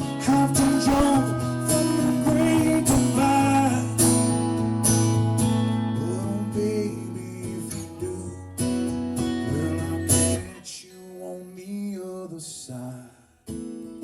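Live solo acoustic guitar in an open tuning, strummed, with a sung line drawn out over it in the first few seconds. The playing thins out and gets quieter about ten seconds in, drops away briefly near the end, then the strumming picks up again.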